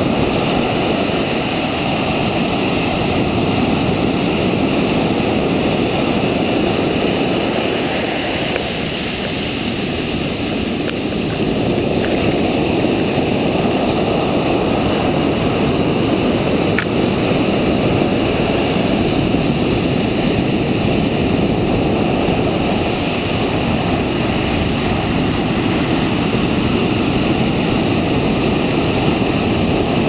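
Ocean surf breaking close by and washing up the sand at the water's edge, a steady loud rush that eases briefly about nine seconds in.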